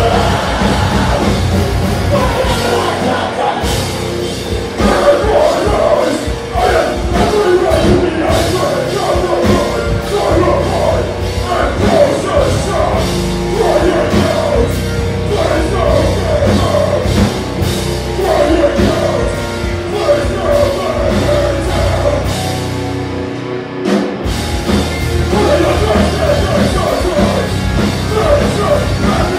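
Rock band playing live: a singer's vocals over electric guitars, bass guitar and drum kit. The band drops out for under a second about four-fifths of the way through and comes straight back in.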